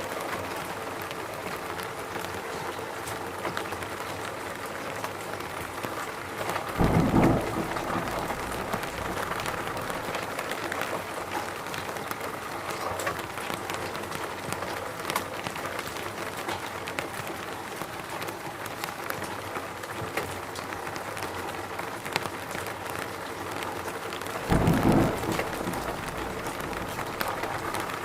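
Steady rain falling in a forest, an even patter throughout. Twice, about 7 and 25 seconds in, a short low thump, each under a second, rises over the rain.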